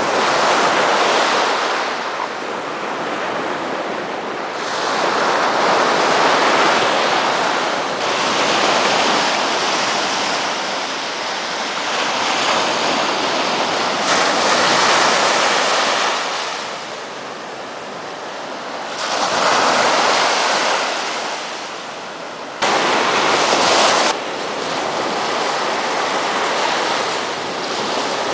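Sea surf breaking and washing up a sandy beach, the noise swelling and fading with each wave every few seconds.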